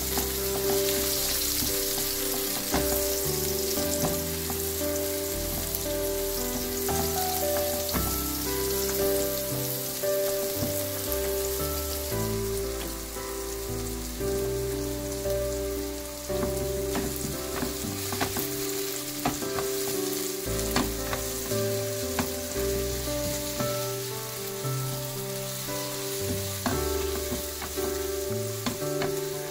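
Sliced shiitake mushrooms sizzling in oil in a nonstick frying pan, stirred with a silicone spatula that gives light scattered clicks against the pan.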